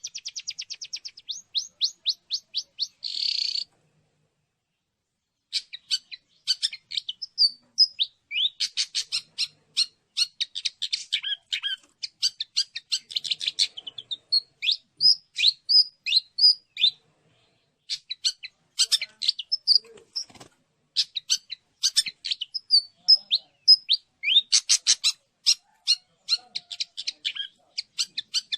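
Long-tailed shrike (cendet) calling: rapid runs of high sharp chirps and trills with short pauses, opening with a fast trill that slows, then a brief harsh rasp.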